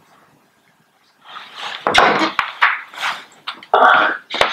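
After about a second of quiet, rustling and handling noise as a person gets up and moves things on a table, broken by a few sharp clicks and knocks.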